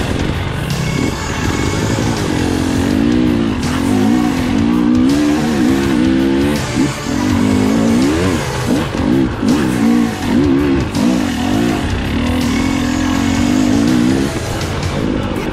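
KTM 300 XC-W TPI two-stroke single-cylinder dirt bike engine climbing under load. Its revs rise and fall quickly and repeatedly as the throttle is worked, then hold steadier near the end.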